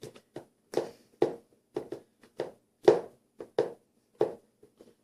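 A spatula stirring thick homemade slime in a bowl: a string of short squelching scrapes and taps, roughly two a second and unevenly spaced.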